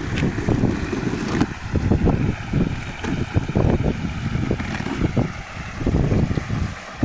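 Wind buffeting the microphone in uneven low gusts. Under it come a few short snips as scissors cut through packing tape on a cardboard shipping box.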